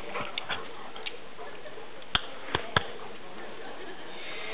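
A few faint clicks, then three sharp, loud clicks close together about two seconds in, over a steady background hiss.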